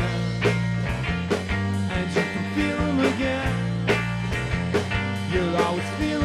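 Live rock band playing: electric guitar, bass guitar and drum kit, with a steady drum beat.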